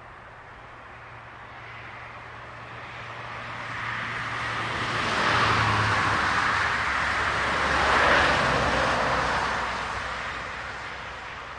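Cars passing on an asphalt road: tyre and engine noise swells, peaks twice about two and a half seconds apart, then fades away.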